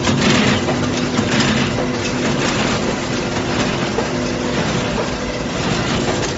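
Automatic carton box stitching machine running: a steady motor hum under a rhythmic mechanical clatter that swells about once a second.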